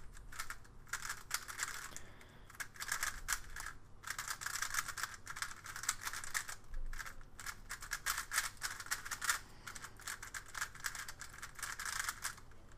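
Gans 356S V2 speedcube turned fast by hand on its first turns out of the box: a dense run of quick plastic clicks and clacks as the layers snap round, with a few short pauses.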